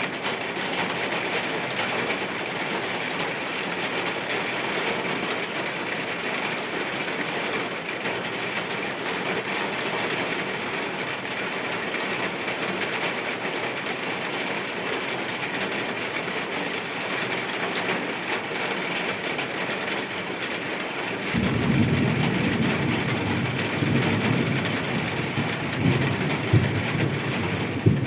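Steady rain falling. About three-quarters of the way in, a low rumble sets in suddenly and carries on, with a few sharp knocks near the end.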